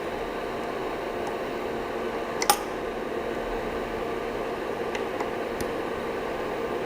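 Steady fan-like hum with a few faint ticks and one sharp click about two and a half seconds in, while the build-plate screw is tightened with an Allen key.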